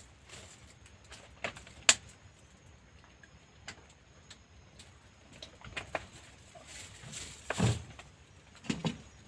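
Scattered clinks and knocks of an aluminium cooking pot and utensils being handled on a small camp stove, with a sharp click about two seconds in and a louder knock near the end.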